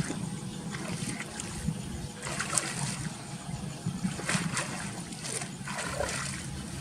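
Water splashing and sloshing, with a few sharper splashes scattered through, as in wading and hand-fishing in shallow water.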